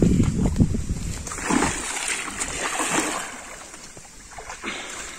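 Pond water splashing and sloshing as two people wade into it carrying a basin. A few low thumps open it, the splashing is loudest around the middle and dies down near the end.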